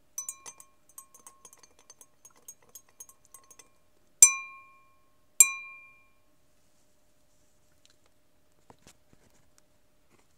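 Glass clinking and ringing: a run of light clinks, then two sharp ringing strikes about a second apart, each dying away over half a second.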